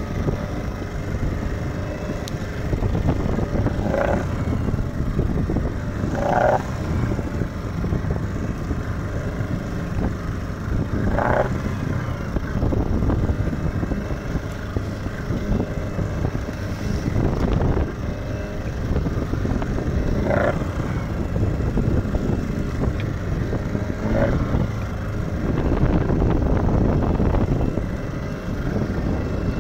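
A small fishing boat's engine running steadily under way, mixed with the wash of waves against the hull and wind. A few brief higher-pitched sounds cut through at intervals of several seconds.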